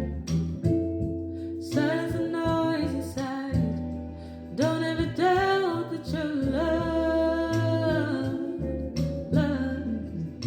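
A singer sings over a sped-up backing beat with plucked guitar and a bass line.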